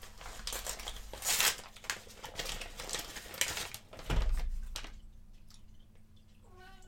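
Packaging being crinkled and torn by hand as a well-wrapped small package is opened, in irregular rustles with a dull thump about four seconds in. A cat meows briefly near the end.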